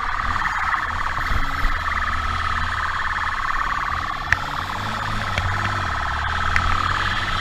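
Police siren sounding continuously with a fast warble, over the steady low running of a motorcycle engine; a single sharp click about four seconds in.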